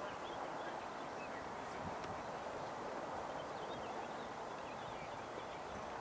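Steady rushing splash of hot water from an erupting geyser, the Waterfall Geyser's outflow spilling into the neighbouring pool.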